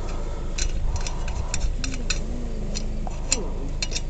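Scattered light metallic clicks and clinks, like hand tools and lug nuts being handled during a tire change, over a steady low background hum.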